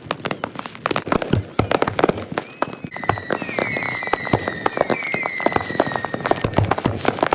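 Dense, rapid popping and crackling bangs of consumer fireworks, sped up to triple speed. From about three seconds in, a steady high whistle runs under the bangs.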